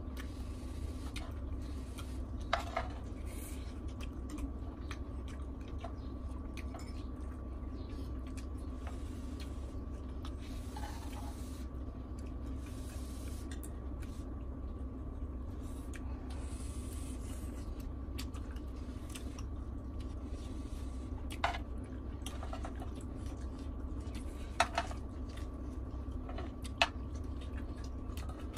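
Spoons clinking and scraping against a grill pan while food is scooped up and eaten, with a few sharp clinks standing out in the last third, over a steady low hum.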